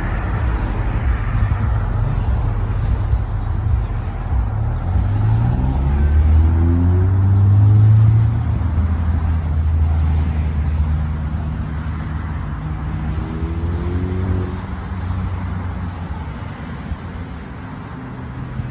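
A motor vehicle engine running close by. Its pitch rises as it speeds up from about four seconds in, loudest around eight seconds, then holds steady, with a second short rise in pitch about thirteen seconds in.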